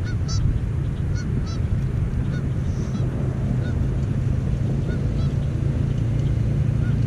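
Short bird calls, a few each second and unevenly spaced, over a steady low rumble.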